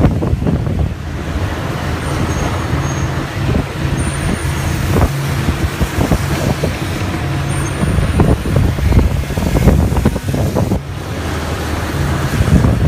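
Road noise from a moving vehicle on a wet road: a steady engine drone under tyre hiss, with irregular low rumbles.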